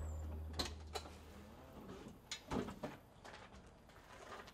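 A forklift's low engine hum dies away at the start, followed by a few faint clicks, knocks and creaks from the forklift cab as the driver moves to climb out.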